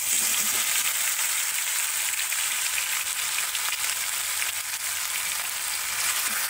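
Yogurt-marinated chicken pieces sizzling in hot oil in an iron kadai as they are dropped in, a steady, dense crackling hiss.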